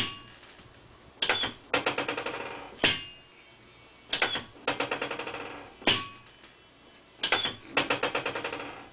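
Chiropractic adjusting equipment clicking in three matching cycles about three seconds apart: a single click, a rapid rattling run of clicks lasting about a second, then one sharp snap.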